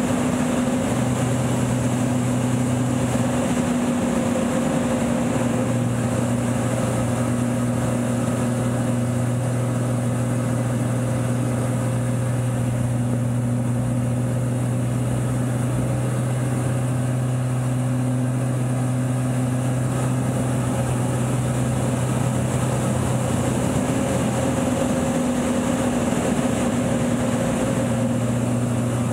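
Lycoming AEIO-580 six-cylinder aerobatic engine and propeller of an Extra 300, heard from inside the cockpit: a steady loud drone with a hiss of airflow. Its pitch shifts briefly twice, a few seconds in and near the end.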